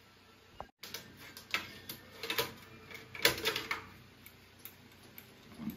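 Irregular clicks and light knocks of a glass lantern slide and the metal fittings of an old magic lantern projector being handled and set in place, the loudest about three seconds in.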